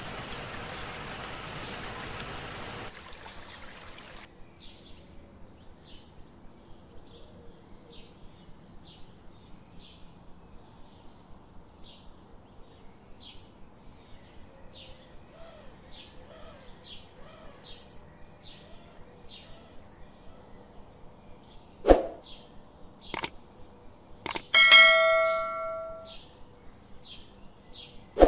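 An even hiss for the first few seconds, then a faint run of short, high chirps about twice a second. Near the end come a few sharp clicks and a loud, bell-like ding that rings for a second or two.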